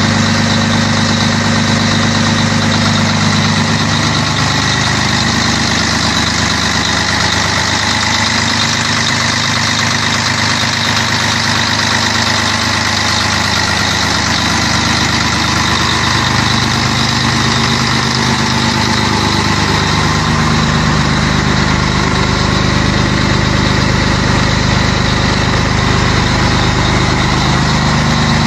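Scania 113H truck's straight-six diesel engine idling steadily, with a low, even rumble.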